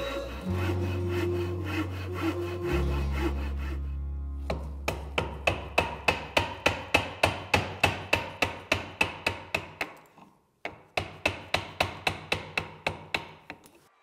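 Japanese pull saw cutting through wood in quick, even strokes, about four a second, starting a few seconds in and pausing briefly near the end.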